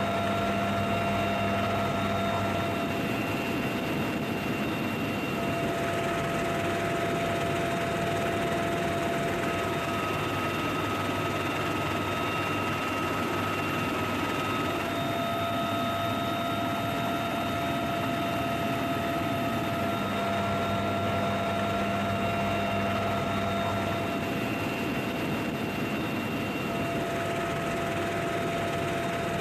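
UH-1Y Venom helicopter in flight, heard from inside the cabin: a steady high whine of the turbines and transmission over a constant rushing noise. The whine's pitch shifts slightly every few seconds.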